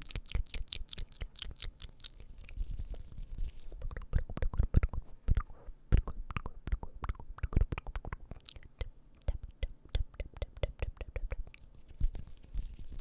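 Close-miked ASMR mouth sounds: a rapid, uneven run of wet clicks and smacks from lips and tongue.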